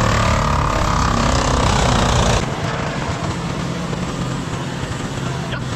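Machine engine running steadily and loudly, then dropping to a quieter steady hum about two and a half seconds in.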